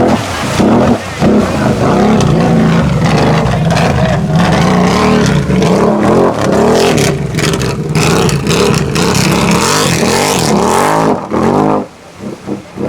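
Off-road ATV engine revving hard, its pitch rising and falling again and again, then dropping away about a second before the end.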